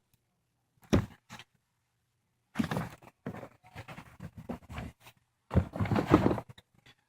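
A single sharp knock, then irregular bursts of rustling, scraping handling noise.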